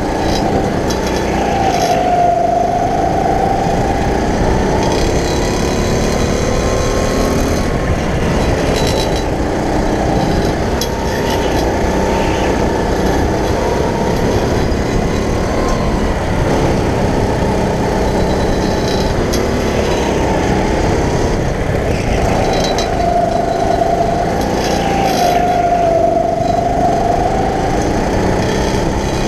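Go-kart running at speed, heard from the driver's seat: a steady motor din whose pitch sags and climbs back, clearly about two seconds in and again from about twenty-three to twenty-six seconds, as it slows for the corners and accelerates out.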